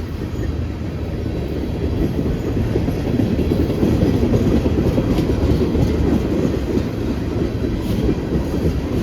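Freight train rolling past: a steady rumble of steel wheels on the rails, getting a little louder about three seconds in.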